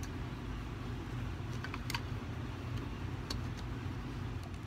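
A few light clicks of plastic and metal small-engine parts being handled and fitted together, the carburetor and air-cleaner base of a Briggs & Stratton mower engine, over a steady low rumble.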